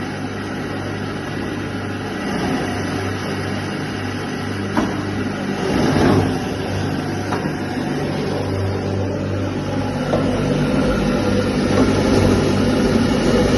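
Electric paste machine running as it pulps peppers, its motor humming steadily under a dense churning noise, with a short knock about five seconds in.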